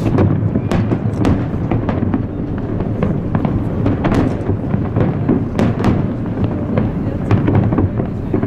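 Large aerial fireworks display: shells bursting in a dense, continuous run of bangs and crackles, several a second, over a low rumble.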